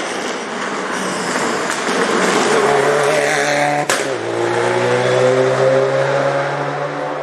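Subaru Impreza rally car at full throttle, coming up and passing close by. About four seconds in there is a sharp crack and the engine note drops as it shifts up, then the note rises steadily as it accelerates away.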